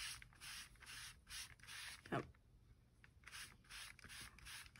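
Oil-soaked foam sponge rubbing back and forth over a sheet of copy paper, a faint scrubbing stroke about twice a second, with a short pause midway. A brief falling sound about two seconds in.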